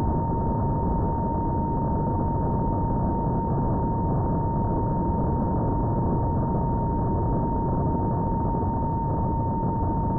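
Radio-controlled electric model plane in steady flight: a constant rush of wind and propeller noise on the onboard camera's microphone, with a steady high whine running through it.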